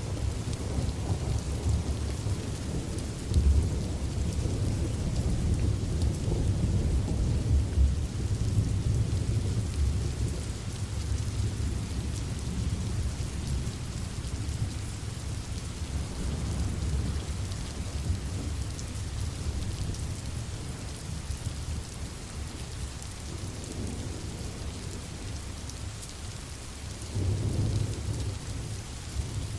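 Steady rain with low rolling thunder, strongest in the first third and swelling again near the end.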